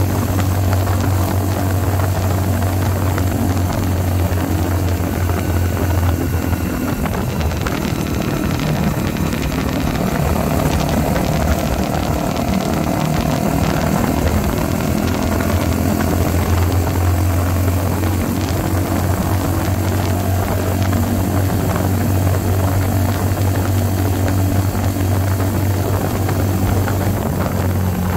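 Mutt Akita 125's 125cc single-cylinder four-stroke engine running steadily through a slash-cut exhaust freshly repacked with glass fibre packing, which the owner thinks has made it louder. The low exhaust note eases and shifts in tone from about seven seconds in for several seconds, then settles back.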